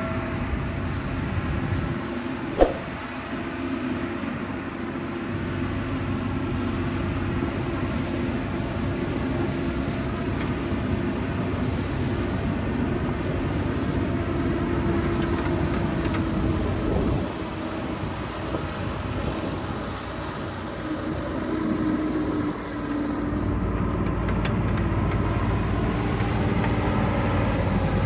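JCB 3DX backhoe loader's diesel engine running steadily as the machine drives over sand, its note drifting slightly up and down. There is a sharp click about two and a half seconds in, and the low rumble strengthens over the last few seconds as the machine comes close.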